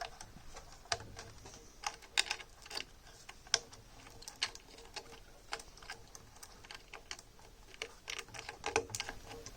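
Irregular light clicks and taps, one or two a second, from small parts being handled during work on a moving-head light, over a faint steady hum.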